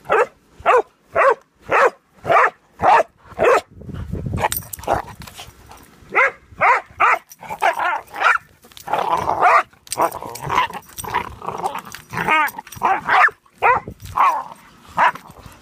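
Pudelpointer dogs barking during a scuffle over a bone: a run of about seven short barks, evenly spaced about half a second apart, over the first few seconds, then more barks in irregular bursts.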